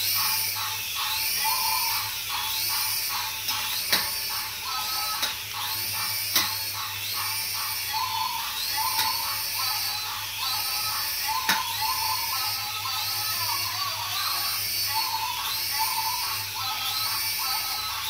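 Small toy helicopter's rotor motor buzzing as it hovers, under background music with a repeating melody. Three sharp clicks stand out along the way.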